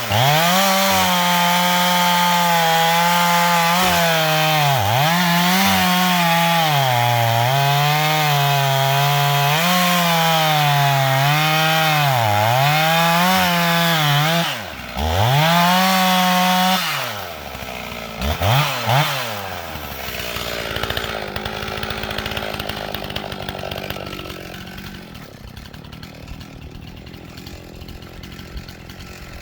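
Rebuilt early Stihl 044 two-stroke chainsaw at full throttle cutting wood, its pitch dipping again and again as the chain bogs in the cut. About fifteen seconds in it revs freely, then drops off, gives two short blips of throttle, and goes much quieter for the last third.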